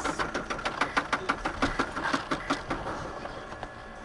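Rapid rattling clatter from a car just after an impact, about seven knocks a second, fading away about three seconds in.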